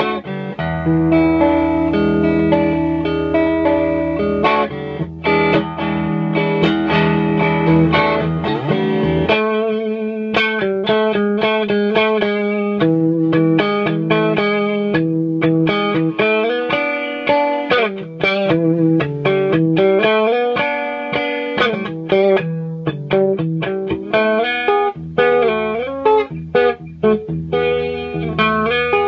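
Electric guitar played through a 1930s Gibson EH-series vacuum-tube amplifier freshly fitted with new filter capacitors, giving a clean tone. Held, ringing chords over a low bass for about the first nine seconds, then picked single-note melody lines.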